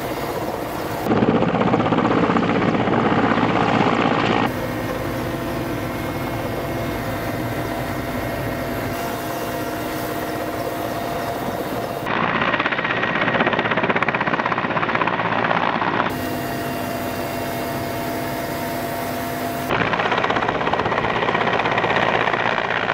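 Mi-8AMTSh helicopter hovering, its turbine engines and main rotor running steadily. The sound switches abruptly several times between a quieter steady hum with a whine, heard from inside the open cabin, and a louder rushing noise in the rotor downwash on the ground below.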